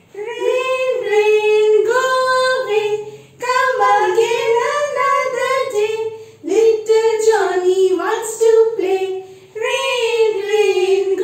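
Two women singing a nursery rhyme together, in four sung phrases with short pauses between them.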